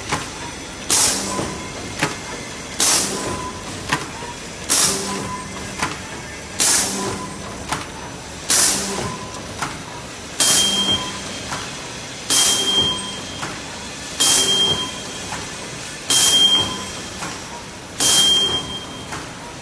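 Plastic apron bag making machine running through its cycle. A sharp hiss of air comes about every two seconds, likely the pneumatic cylinders venting, with mechanical clatter between. In the second half each hiss carries a brief high tone.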